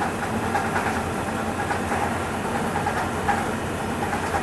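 Steady mechanical drone of plastic-recycling machinery running.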